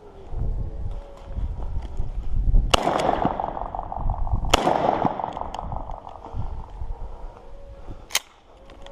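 .410 shotgun fired twice, about two seconds apart, each shot followed by a ringing echo. A single sharp click comes near the end.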